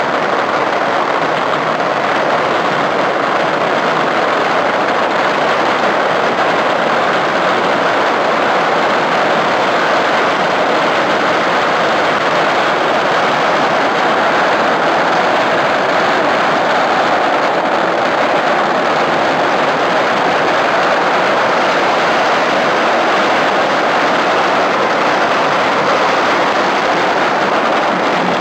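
Long strings of firecrackers laid on the ground going off in a dense, unbroken crackle.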